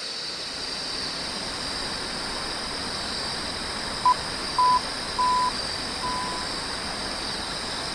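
Steady high chirring of night insects such as crickets over a low background hiss. About four seconds in come four electronic beeps at a single pitch, each a little longer than the one before.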